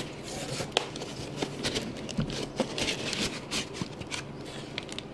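Cardboard box being handled with gloved hands: flaps and inserts scraping and rustling, with irregular light knocks and taps.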